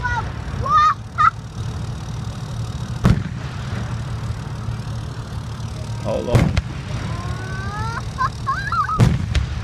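Fireworks display: shells bursting in sharp bangs about every three seconds over a steady low rumble, with high wavering cries in between.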